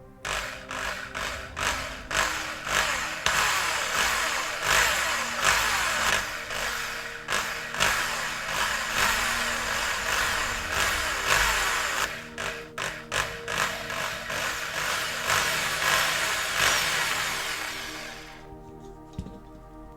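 Power drill running in repeated short surges, drilling out the rivets that hold a diecast toy car's base plate. It stops suddenly near the end, leaving background music.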